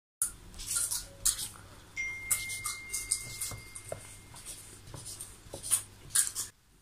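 Felt-tip marker scratching across the paper of a test booklet in short quick strokes as answers are ticked off, with a page turned partway through.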